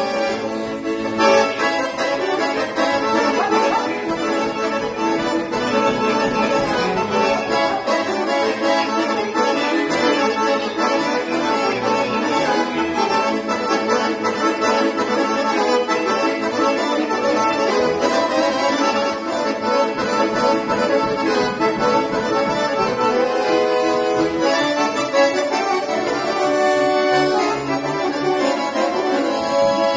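Piano accordion played solo: a tune of melody over held chords, running steadily.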